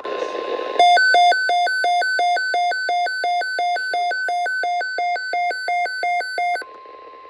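Emergency alert tone: an electronic alarm switching rapidly between a low and a high beep, about three times a second. It starts about a second in and cuts off abruptly near the end, over a faint steady tone and radio static.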